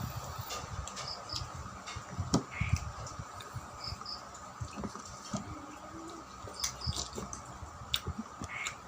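Close-up eating sounds: chewing and wet mouth smacks and clicks while eating rice with ripe mango, in short irregular bursts.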